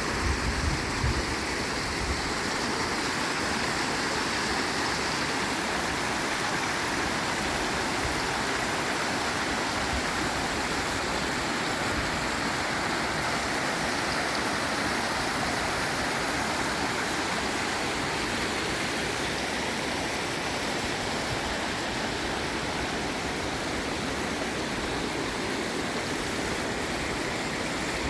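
Waterfall rushing, a steady, even sound of falling water throughout, with a few low bumps in the first second or so.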